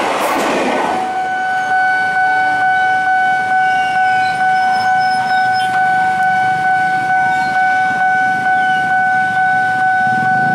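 Electronic level-crossing warning alarm sounding one steady pitch that pulses in a regular beat. It starts about a second in, just as the rail noise of a passing commuter train fades away.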